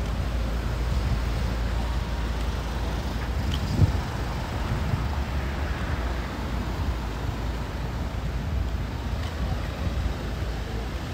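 Street traffic: cars driving past with a steady low rumble, and a single short thump about four seconds in.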